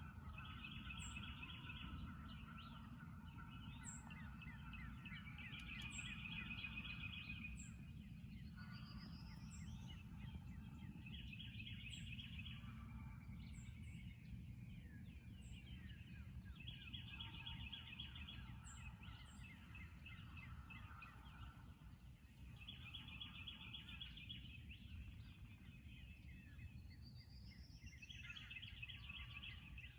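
Wild songbirds singing faintly over a low steady background rumble: a short trill repeats every five or six seconds, with a couple of rising whistles and tiny high chirps between.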